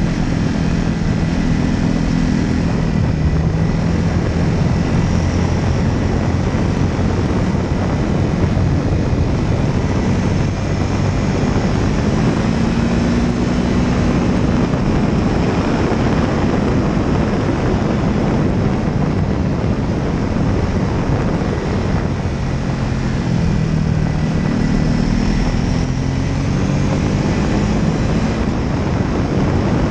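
Propeller engine of a light aircraft running steadily in flight, its pitch drifting slightly up and down, under a heavy rush of wind over the microphone.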